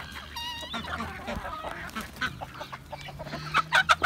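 Mixed flock of chickens and ducks clucking and calling as they feed, with many short clucks and honk-like calls. A longer wavering call comes about half a second in, and a cluster of sharper calls comes near the end.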